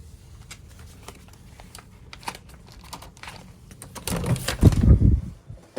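Small clicks and rattles of keys being handled at a door, then about a second and a half of louder, rumbling knocks and handling noise as the door is opened.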